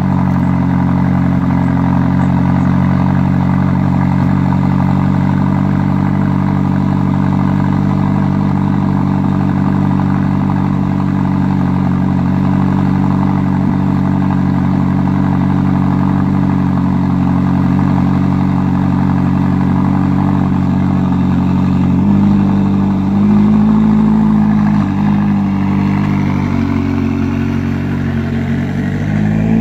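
McLaren 570GT's twin-turbo V8 idling steadily after a cold start. About two-thirds of the way through, the note shifts and wavers as the car pulls out at low speed.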